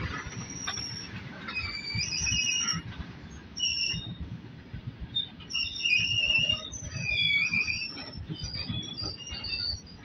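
Freight train of loaded open-top box wagons rolling slowly past on the next track: a low clatter of wheels knocking over the rails, with intermittent high squeals from the wheels starting about a second and a half in.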